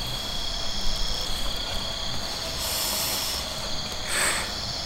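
Crickets and other night insects trilling steadily in a constant high chorus, with two short hissing noises over them, one in the middle and one near the end.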